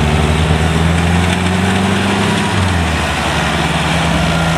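Kubota DC70 rice combine harvester running while harvesting, its diesel engine and machinery making a steady, loud drone.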